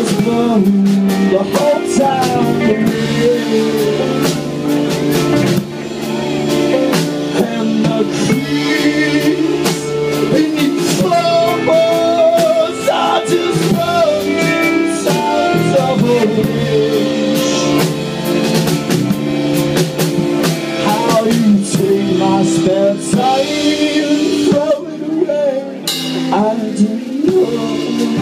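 Live band playing loud, with guitars over a drum kit; the guitar lines bend and slide over a steady beat.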